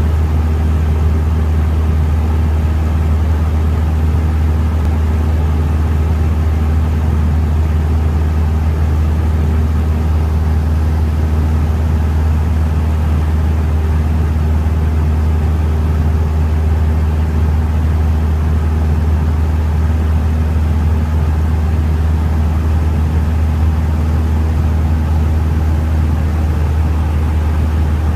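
Cessna 172's piston engine and propeller droning steadily, heard from inside the cabin, with a strong low hum and no change in power.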